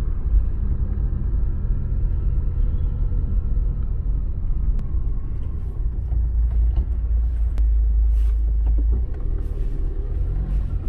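Steady low rumble of a car driving, heard from inside the cabin, with a couple of faint clicks.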